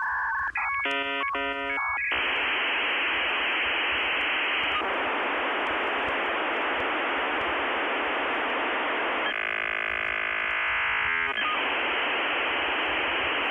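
Modem handshake over a telephone line: a quick run of stepped, warbling tones about a second in, then a steady hiss of data noise, broken between about nine and eleven seconds by a stretch of many held tones before the hiss returns.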